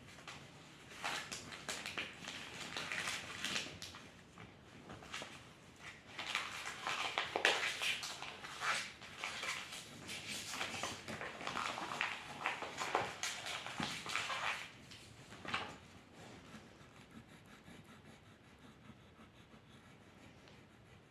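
Pencil or pen strokes scratching on paper, a run of quick, uneven scribbling strokes that thins out near the end.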